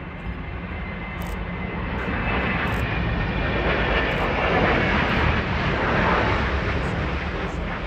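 Jet engines of a Boeing 787-9 airliner on low final approach. A roar with a high whine over it swells as the plane passes, peaks about five seconds in, then begins to fade.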